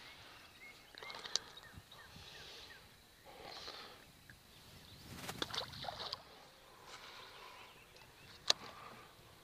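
Fishing tackle handled while a small bass is unhooked and the rod is cast again: scattered light clicks and soft rustling, a cluster of clicks about five seconds in and one sharp click near the end.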